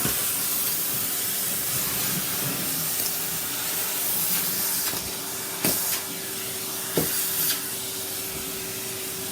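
Vacuum cleaner running with a steady rushing hiss as it sucks up scraps of food from the floor. Short sharp clicks about five and a half and seven seconds in are bits rattling up the hose, and a steady hum joins about halfway through.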